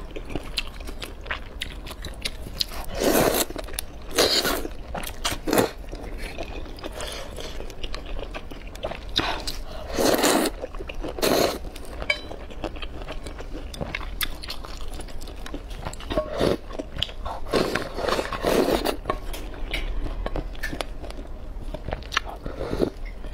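Close-miked eating of noodles in a red broth: several loud slurps of noodles and broth every few seconds, with wet chewing and small clicks and scrapes of chopsticks and spoon against a metal pot in between.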